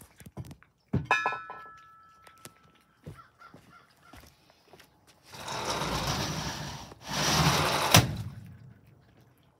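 Cats eating soft food: faint clicks of chewing and licking, with a brief ringing tinkle about a second in. Two loud bursts of rushing noise fill the second half, the second ending in a sharp thunk.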